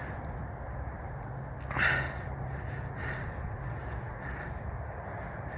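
A bird calling four times, about a second apart, with the loudest call about two seconds in, over a steady low hum.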